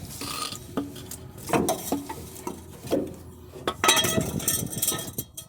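Irregular metallic clinks, knocks and scraping as the old rear shock absorber is worked off its mount, with a cluster of louder knocks about four seconds in.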